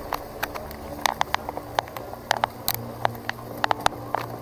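Hero Xpulse 200 4V's single-cylinder four-valve engine running at low, steady revs on a rough dirt track, heard from on the bike, with irregular sharp clicks and knocks throughout.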